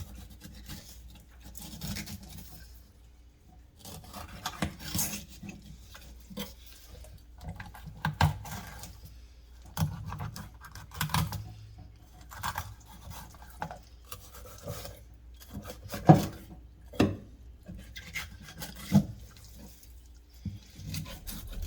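A knife cutting and scraping through a large sea bass on a cutting board while it is filleted for sashimi, with irregular scrapes and sharp knocks against the board.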